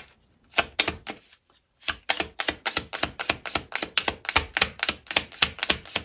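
Tarot cards being shuffled by hand. A few card slaps come first, then from about two seconds in a quick, even run of clicks, about five a second.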